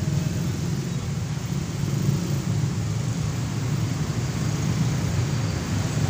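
Dense slow-moving road traffic of cars, vans, trucks and motorcycles, a continuous low hum of engines and tyres at an even level.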